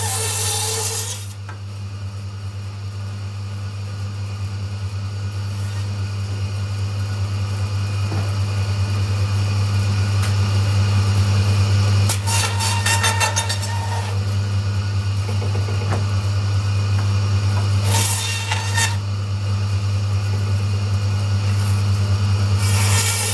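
Meat bandsaw motor running with a steady hum, its blade cutting through lamb bone. The cutting is louder and harsher in short spells: in the first second, about halfway through, once more a little later, and again near the end.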